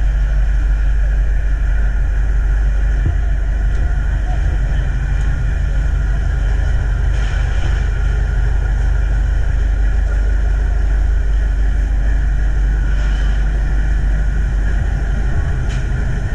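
Ferry's engines running with a steady, loud low drone while passengers disembark. The drone holds level and unchanged, with a few faint, brief sounds about seven and thirteen seconds in.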